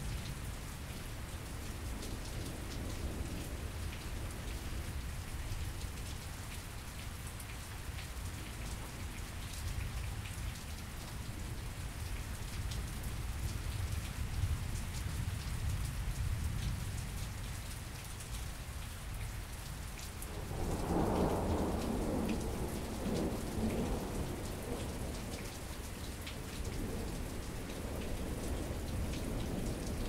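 Steady rain falling, with many individual drops ticking close to the microphones and a low rumble underneath. A roll of thunder swells about two-thirds of the way through and rumbles on for several seconds, with a fainter roll near the end.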